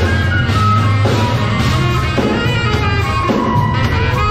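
Live street band playing: a flute melody over a drum kit and a deep, steady bass line.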